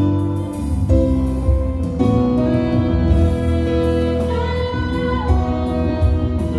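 Instrumental wedding processional music: slow melodic notes held over a low bass line, with one note sliding about five seconds in.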